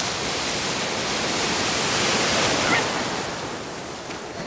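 Shallow surf washing around the camera, a small wave's rush of water swelling to its loudest about two seconds in and then easing off.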